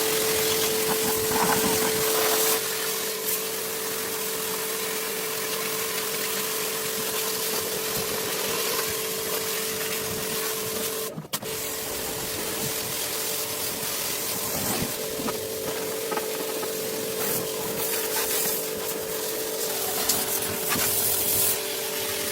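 A small machine running with a steady hum over a hiss. The hiss swells near the start and again near the end, and the sound breaks off very briefly about eleven seconds in.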